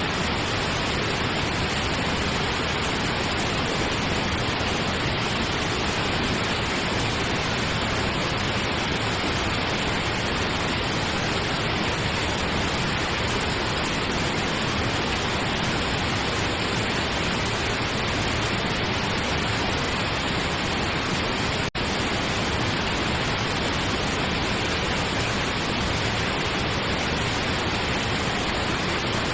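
Steady pink noise for sleep, an even hiss with no changes, broken only by a momentary dropout about three-quarters of the way through.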